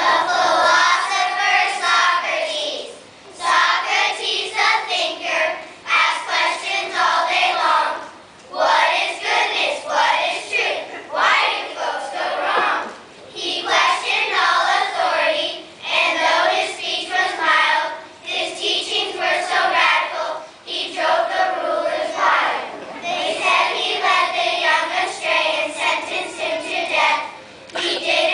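A group of young children singing together as a choir, in sung phrases of a few seconds with brief breaths between them.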